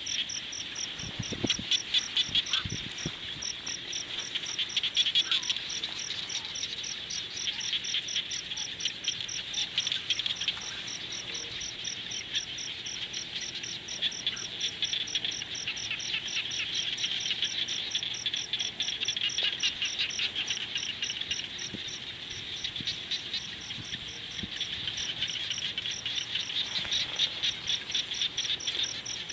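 Evening chorus of calling insects and frogs: a fast, even, high-pitched pulsing and a shrill trilling band that swells and fades every several seconds. A few low pops in the first few seconds, from the crackling campfire.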